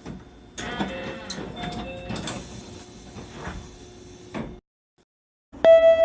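Meitetsu 1200 series train door chime, short two-pitch tones sounding over the noise of sliding passenger doors running and shutting. After a brief silence near the end, a louder two-note ding-dong chime starts.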